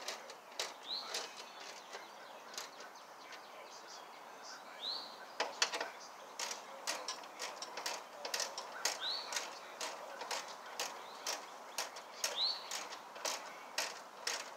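Hand socket ratchet clicking in short runs as the bolts of a new mower-deck blade spindle are tightened. A bird chirps several times.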